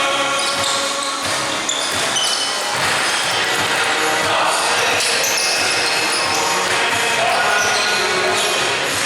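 Basketball game in a gym: a ball bouncing on the court amid players' voices, with the echo of a large hall.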